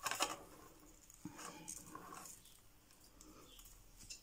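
Hands working in loose potting substrate and decorative pebbles among succulent leaves: soft scattered scratching and rustling, with a brief louder scrape right at the start.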